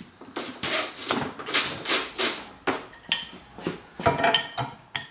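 A run of irregular metal scraping and knocking strokes from steel and tools being handled at a workbench, with a brief metallic ring about four seconds in.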